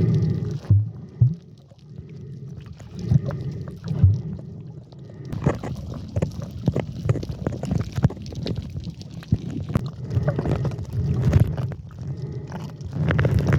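Muffled water sloshing and gurgling around a camera in a waterproof case during snorkeling, with irregular low rumbles and many small knocks and clicks.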